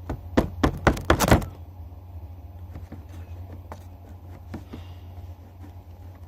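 Slime being worked in a plastic container: a quick run of sharp knocks and clicks in the first second and a half, then sparse faint clicks. A steady low hum runs underneath.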